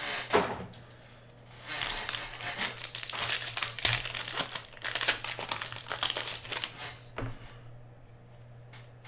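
Trading card pack wrappers crinkling as packs are torn open and handled, a dense crackle lasting about five seconds from about two seconds in.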